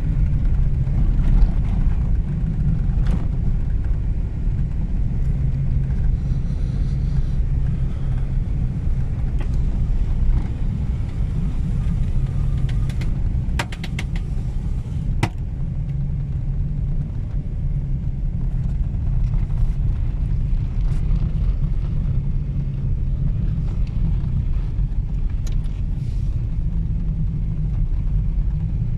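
Car driving on an icy road, heard from inside the cabin: a steady low rumble of engine and tyres, with a few sharp clicks and ticks about halfway through.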